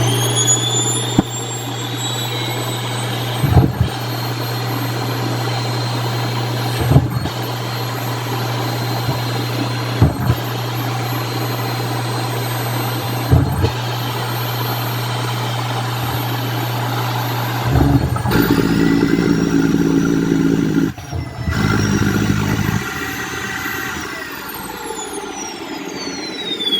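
Vacuum cleaner motor starting with a quickly rising whine and running steadily with a strong hum, a knock sounding about every three seconds. About two-thirds through the sound turns louder and rougher, and near the end the whine falls as the motor winds down.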